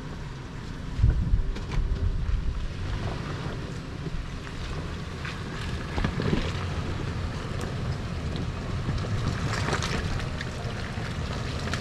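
Off-road 4x4 engine running at low revs as the vehicle crawls through a rocky trail section, with scattered knocks and scrapes of tyres on rock. The rumble swells about a second in and again around six seconds.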